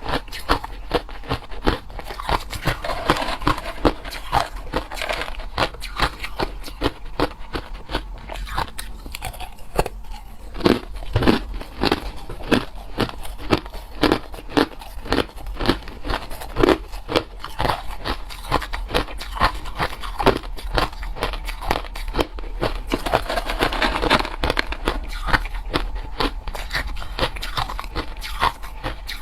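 Close-miked chewing of hard crushed ice: fast, dense crunching and cracking as the ice is bitten and ground between the teeth, steady throughout.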